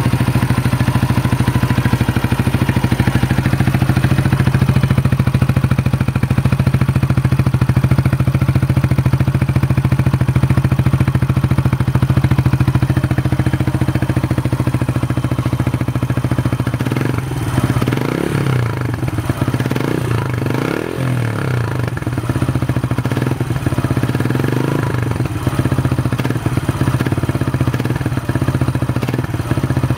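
Yamaha YBR 125's air-cooled single-cylinder four-stroke engine idling steadily through a Leo Vince aftermarket silencer. A little past halfway through it is revved in a series of throttle blips, rising and falling in pitch.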